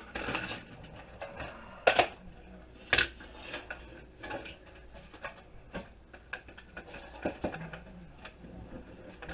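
Clicks, knocks and light clatter of a toaster being taken apart by hand, its plastic and metal parts handled and knocked against each other. Two sharper knocks come about two and three seconds in, followed by lighter scattered taps and clicks.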